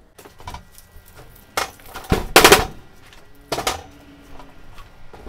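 Galvanized steel mounting plate of a control panel, fitted with plastic wiring trunking and DIN rails, handled and tipped up on a workbench: a few metal knocks and rattles, the loudest a long clatter about two seconds in. The plate is being tilted to clear off metal shavings.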